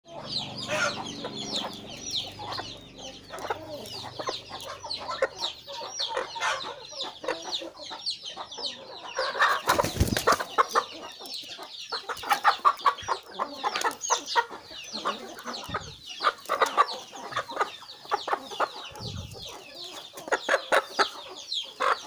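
Backyard chickens clucking, with many rapid, short, high chirping calls, and a loud knock about ten seconds in.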